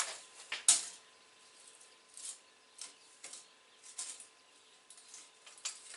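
A handful of short scratchy clicks and scrapes spread over several seconds, the loudest about half a second in, as a steel tape measure is pulled out and laid against steel bars.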